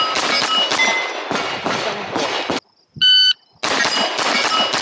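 Pistol caliber carbine fired in a quick run of shots at steel plates, the plates ringing with clangs between shots; the firing stops, a shot timer gives its short start beep about three seconds in, and a new string of rapid shots and steel clangs begins about half a second later.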